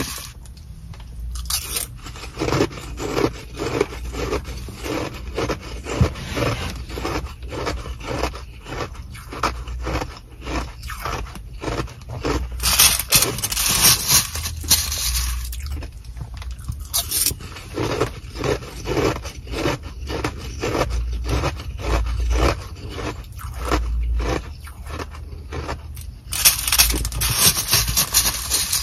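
A plastic spoon scraping and crunching through a frozen-together bag of Sonic nugget ice, breaking it up in quick repeated strokes, with crackling ice and crinkling plastic bag. The strokes grow louder and denser about halfway through and again near the end.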